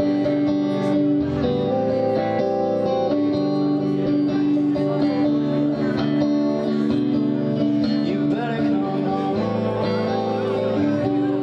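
Live indie-pop song on electric guitar, chords ringing with long sustain.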